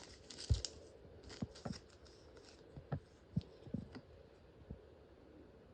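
Foil Pokémon card booster pack being handled and torn open: irregular crinkles and light taps, with a soft thump about half a second in.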